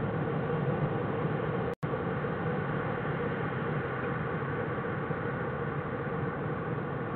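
Steady hiss and low hum from a den camera's microphone, cutting out completely for an instant just under two seconds in.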